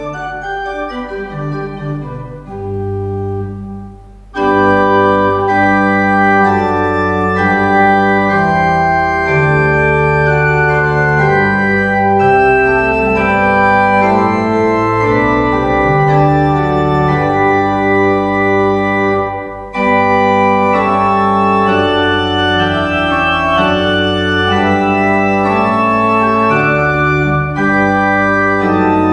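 Church organ playing slow, sustained chords. It is soft for the first few seconds, comes in at full strength about four seconds in, and breaks off briefly about two-thirds of the way through before going on.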